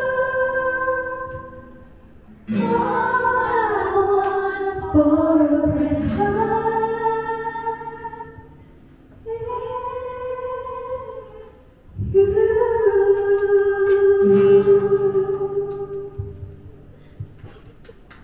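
A woman singing a slow song into a microphone with acoustic guitar accompaniment, in long held phrases with short breaks between them. The singing fades away near the end.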